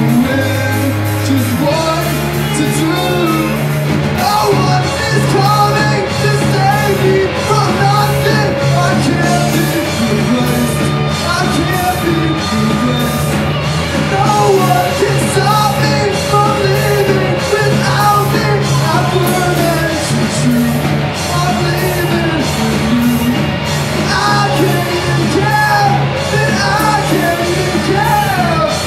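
Live rock band playing a song: electric guitars and a drum kit, with a man singing lead vocals into the microphone over them.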